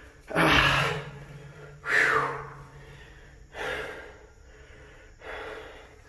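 A man breathing hard, with four loud, heavy exhales about a second and a half apart, the first two the strongest, from the effort of crouch-walking through a low tunnel.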